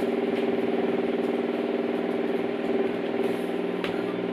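A small electric motor or pump running with a steady hum.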